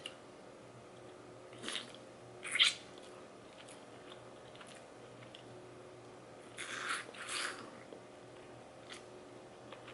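Crab shell being cracked and picked apart by hand, with crab meat eaten from the fingers: a few short crackles and crunches, the loudest about two and a half seconds in and a pair near seven seconds.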